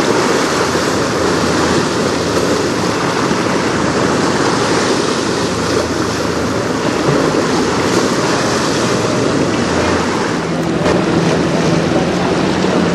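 Strong wind rushing over the microphone and choppy river waves, a loud steady hiss. About ten seconds in, a steady low motor hum comes in underneath.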